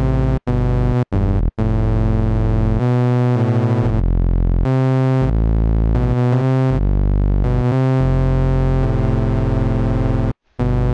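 Harmor additive synthesizer plug-in in FL Studio 11 playing low notes rich in overtones. It plays a few short notes, then longer held notes at changing pitches.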